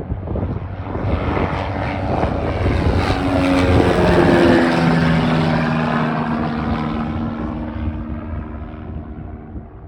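Propeller airplane flying past. Its engine swells to a peak about four seconds in, drops in pitch as it goes by, then fades away.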